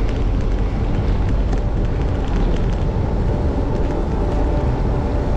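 Steady, loud wind rush and rumble on the microphone of a moving bicycle.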